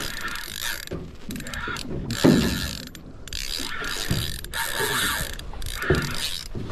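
Spinning reel being cranked hard in spurts, its gears and rotor whirring and clicking as a hooked fish is wound in under load. A low thump about two seconds in.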